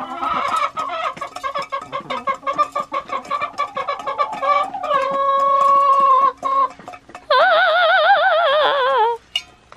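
Hens clucking and cackling together for the first half, then a long drawn-out steady call and a longer warbling call, after which the clucking stops shortly before the end.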